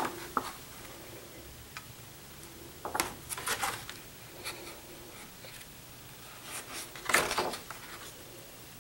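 Thick, glossy laminated pages of an LP-sized lyric booklet being turned and handled: a brief paper rustle and slide about three seconds in, another about seven seconds in, and a few faint taps between.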